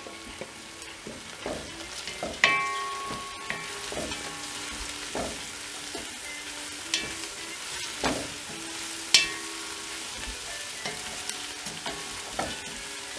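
Sliced onions, green chillies and mint frying in oil with a steady sizzle, stirred with a wooden spoon that scrapes and knocks against the enamelled pot now and then. The loudest knocks come about two and a half seconds in and again around eight and nine seconds in.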